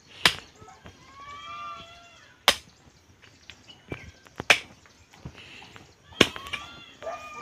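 Several sharp knocks at uneven spacing, with a short high call that rises and falls in pitch, like an animal's, about a second in and again near the end.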